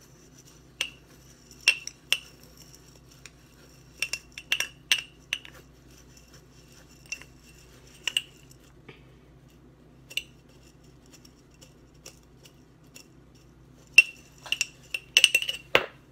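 Metal spoon clinking against the inside of a glass mason jar while stirring dry rolled oats, brown sugar and cinnamon. Single clinks come irregularly with pauses between, and a quick run of clinks comes near the end.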